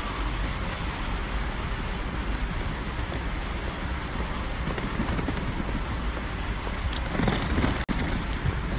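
Suitcase wheels rolling over a stone-tiled floor: a steady rumble with faint clicks, with a brief break near the end.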